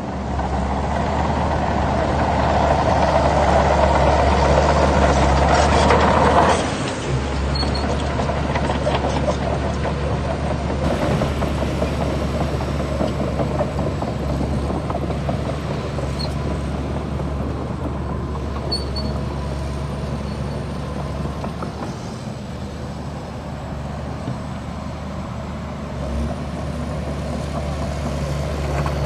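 Heavy diesel engine of earthmoving machinery running under load, with a deep steady hum. It is loudest for the first six seconds or so, then drops abruptly and carries on at a lower, even level.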